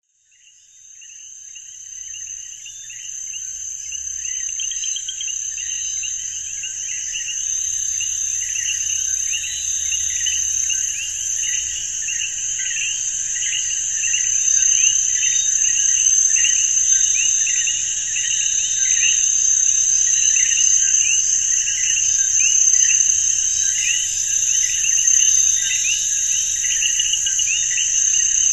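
Chorus of insects: a steady, high shrill trill, with a faster chirping pulse layered beneath it. It fades in over the first few seconds and then holds steady.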